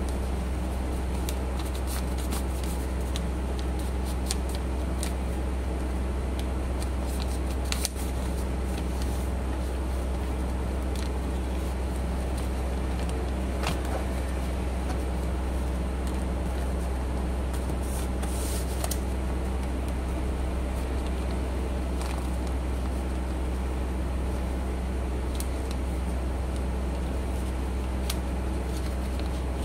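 A steady low hum runs throughout, with soft, scattered rustles and creases of a sheet of paper being folded by hand into an origami crane.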